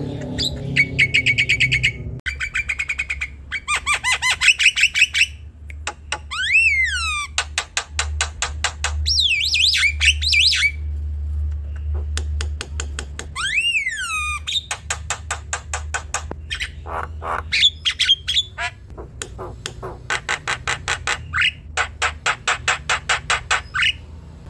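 Javan myna in full song: long runs of fast rattling clicks and harsh chatter mixed with squawks, and a few whistled notes that swoop down and back up, with short pauses between phrases.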